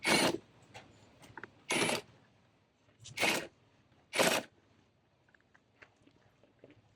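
Ratchet wrench ratcheting in four short bursts while loosening the air box housing bolts. The bursts come near the start, at about two seconds, at about three seconds and at about four seconds, with faint ticks of handling after.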